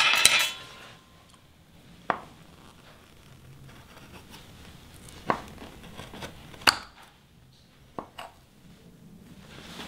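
Metal knife and spatula knocking and scraping against a glass baking dish while a stuck slice of brownie cheesecake is pried loose. A clatter at the start is followed by four sharp clicks spread over the next several seconds.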